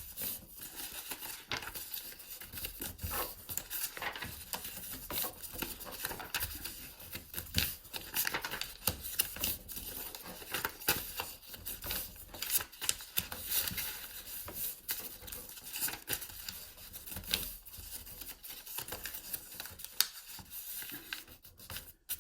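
A sheet of paper being folded back and forth into a concertina fan: irregular crinkling and sharp creasing crackles as each fold is pressed down.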